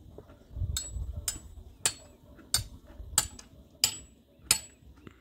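Steady hammering: about eight sharp blows, roughly one every two-thirds of a second, each with a brief metallic ring.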